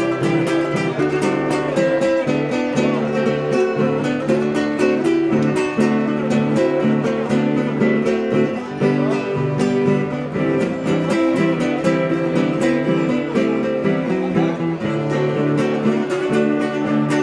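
Acoustic guitar music, strummed and plucked in a steady rhythm.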